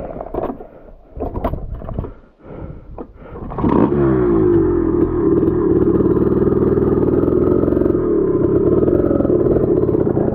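Irregular clattering and scraping, then a dirt bike engine comes in loud and sudden about four seconds in. Its pitch dips briefly, then it runs steadily.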